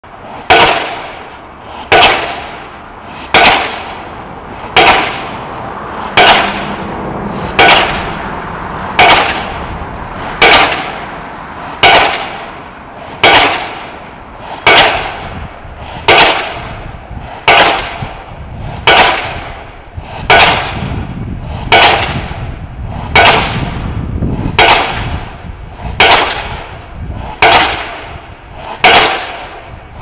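Pile driver's hammer striking a pile over and over at a steady pace, about one blow every second and a half. Each blow is a sharp, loud bang that rings and dies away before the next.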